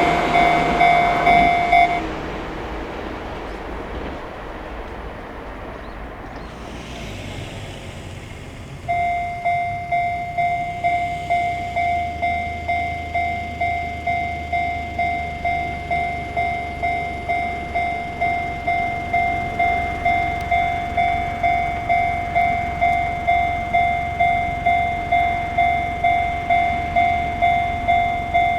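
Chichibu Railway level-crossing alarm sounding its 'Chichibu tone', a steady electronic ding repeating about twice a second, over the noise of a passing train; it stops about two seconds in and starts again about nine seconds in, signalling another train on its way, with a low rumble building beneath it.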